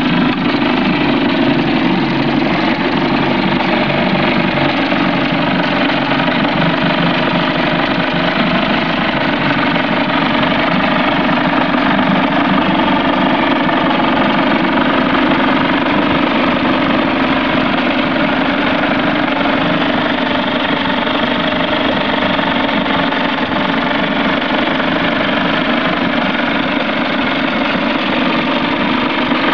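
Small outboard motor idling steadily with its engine cover off, so the bare powerhead is heard directly.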